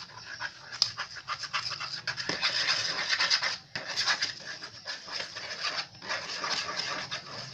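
A stirrer scraping round a container of white glue mixed with water, many quick irregular strokes with two short pauses.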